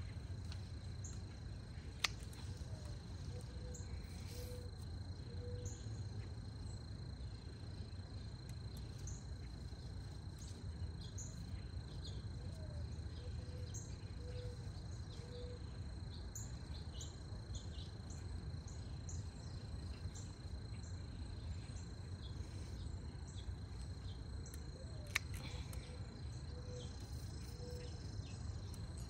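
Garden snips cutting plant stems with two sharp clicks, about two seconds in and near the end, over a steady high insect trill. A low cooing bird call, a rising note then three short coos, comes three times, with scattered high bird chirps.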